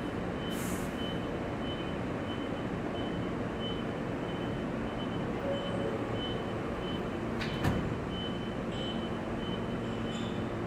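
An R160 subway train standing at the platform, its equipment humming steadily, with a short hiss of air just after the start. About three-quarters through, its doors slide shut with a single clunk.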